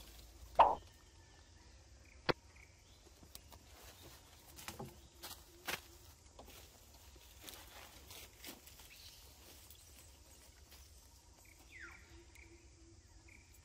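Macaques moving about on fallen tree branches: scattered crackles and a sharp snap of twigs and leaves. A short, loud call falling in pitch about half a second in, and a softer falling call near the end.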